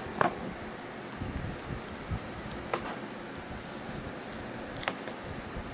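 Hands handling a plastic Blu-ray case: three sharp clicks spread a couple of seconds apart, with soft low thuds of the case being moved between them.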